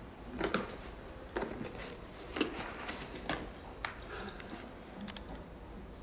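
A handful of short rustles and clicks from a handbag being handled and a mobile phone taken out, spread over the first four seconds, with faint room tone behind.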